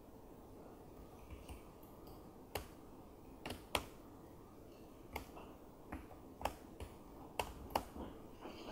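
Laptop keyboard typing: about a dozen faint, sharp key clicks at an uneven pace, over a steady low room hum.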